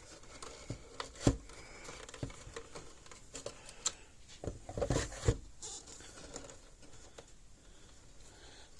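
Scattered small clicks, taps and rustles of wires and plastic parts being handled and pushed into place inside a solar fence charger's housing, with a sharp knock about a second in and a cluster of heavier knocks around five seconds in.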